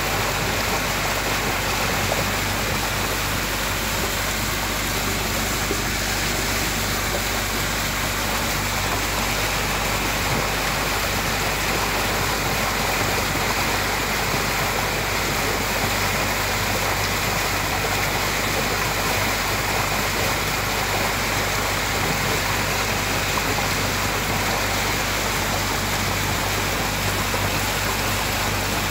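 Steady rushing of water and air past a moving boat, with the low, even hum of the boat's engine underneath.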